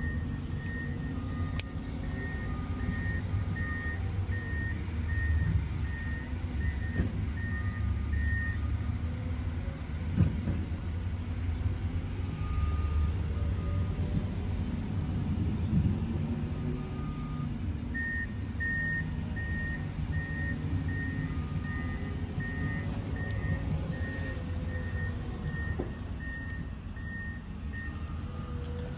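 High electronic beeping repeating about one and a half times a second over a steady low rumble. The beeping stops for about ten seconds midway, then resumes.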